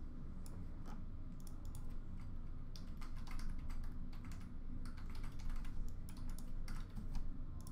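Typing on a computer keyboard: irregular keystrokes, some in quick clusters, over a low steady hum.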